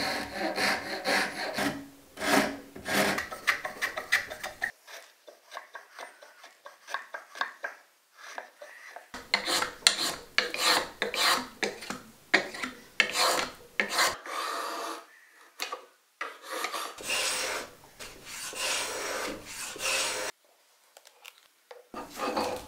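Hand file rasping the edge of a maple spoon handle: runs of quick back-and-forth scraping strokes, softer for a few seconds after the first run, with a short pause near the end.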